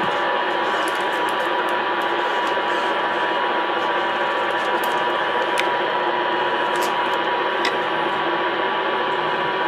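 Shortwave receiver tuned to 15 MHz, hissing with static from its speaker, with a steady whistle under the hiss. A few light clicks and rustles come from wire being wound around a paper cup as a makeshift antenna.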